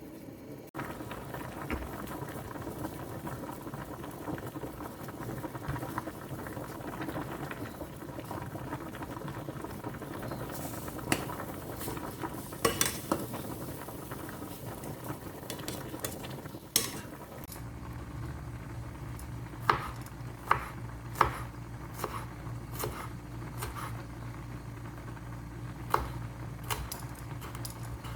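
Food cooking in a pan, a steady sizzling and bubbling, with a utensil stirring and clinking against the pan several times. About two-thirds of the way through, a steady low hum starts under it.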